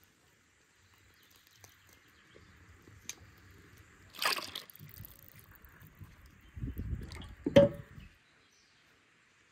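A milky liquid being poured through a plastic funnel into lamb lungs, sloshing and splashing: a short splash about four seconds in, then wet sloshing near the end with one sharp, louder splash.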